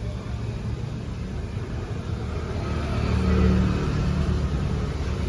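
Engine of a motor vehicle running nearby: a low rumble that swells to its loudest about three to four seconds in, then eases off.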